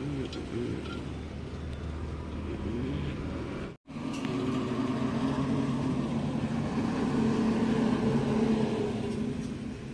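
Motor vehicle engine running steadily. It cuts off abruptly about a third of the way in, then a steadier, slightly louder engine drone picks up and swells a little near the end.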